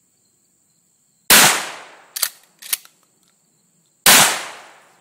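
Two shotgun shots about three seconds apart, firing cheap Winchester shells, each blast followed by a fading echo. Two short sharp clicks come between the shots as the action is worked.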